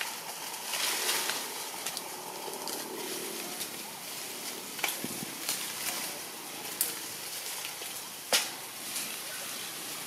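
Dry leaf litter crackling and rustling with scattered sharp twig snaps, the loudest a little after eight seconds in, over a steady high hiss of forest background.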